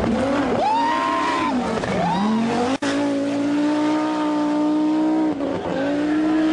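Audi Quattro Group B rally car's turbocharged five-cylinder engine at full race pace, its note rising and falling twice with throttle and gear changes, then held high with a brief dip near the end. A short gap about three seconds in where the recording is cut.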